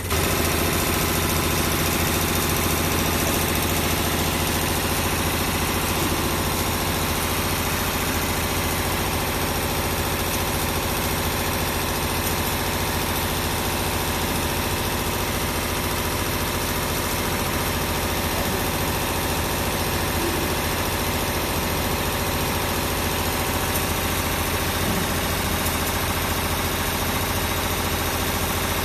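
Six-spindle CNC needle winding machine running at speed, its needles winding wire onto brushless motor stator cores: a steady mechanical hum with several steady tones.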